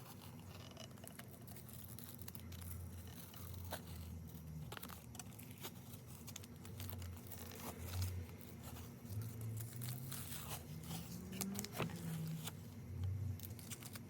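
Tape being peeled off a painted craft piece, with faint tearing and crinkling.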